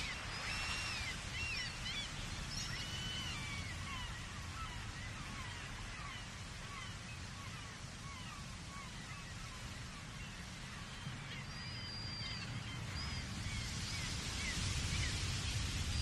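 Many gulls calling at once, short high arching cries overlapping, busiest in the first few seconds and again near the end. Under them runs the steady low rush of ocean surf far below, swelling towards the end.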